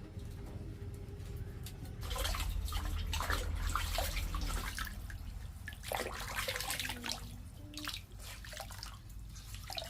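Water splashing and pouring in uneven bursts, the heaviest about two seconds in.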